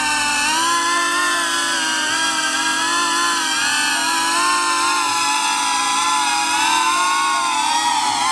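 FPV racing drone's electric motors and propellers whining in flight, several close pitches that drift up and down together as the throttle changes.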